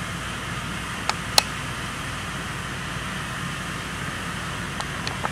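Burning model volcano erupting with a steady fizzing hiss as it throws out sparks and ash. Sharp crackles break through about a second in, the loudest at about a second and a half, and a few more near the end.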